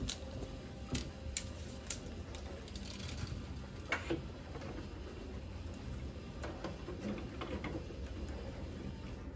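Scattered clicks and light knocks from a folding rule being unfolded and laid across a wooden drawer, the loudest about four seconds in, with fainter ticks later, over a steady low hum.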